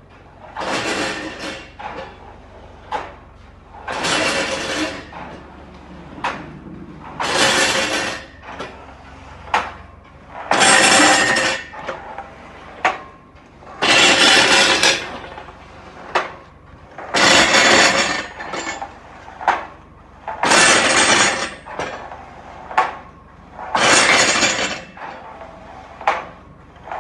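Machinery running in a repeating cycle. A burst of rushing noise about a second long comes roughly every three seconds, with short sharp clinks and knocks between the bursts.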